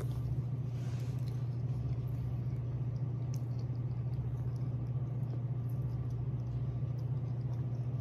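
Steady low hum with faint mouth sounds of chewing a burger over it.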